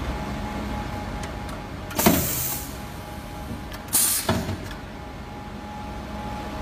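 Pneumatic cylinder of an ultrasonic plastic welding machine driving the welding head down onto the mould and back up: two short knocks with a rush of air hiss, about two seconds apart.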